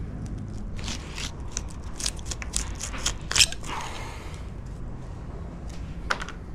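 Knife cutting into a large spangled emperor as it is filleted: a run of crackling, crunchy clicks as the blade works through the fish, loudest about three and a half seconds in, with one more near the end.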